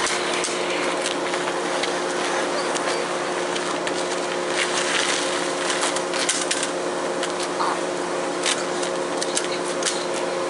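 A steady hum over loud hiss, with scattered brief scrapes and rustles from a person being dragged by the legs across pavement.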